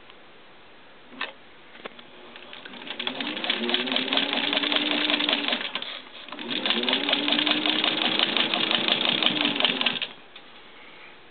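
Singer 15-91 sewing machine running, a rapid clatter of stitching over the hum of its motor. It speeds up and runs twice, with a short stop about six seconds in, and stops near the end. A single click comes about a second in.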